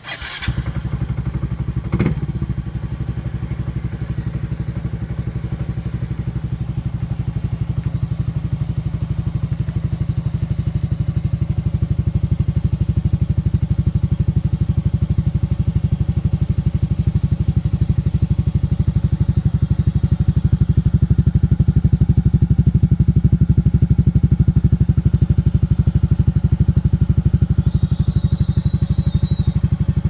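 Yamaha Mio Soul i GT 125 scooter's single-cylinder engine, stock but breathing through an aftermarket Spec V exhaust pipe, fires up with a sharp burst, gives a second sharp pop about two seconds in, then settles into a steady, fast-pulsing idle.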